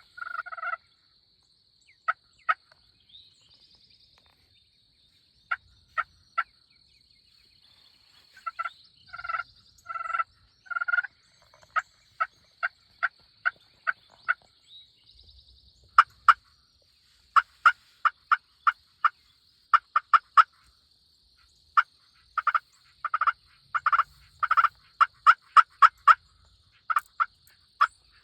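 Wild turkey calling: runs of short, sharp yelps and clucks at irregular intervals, coming quicker and denser in the second half, over a faint steady high-pitched hum.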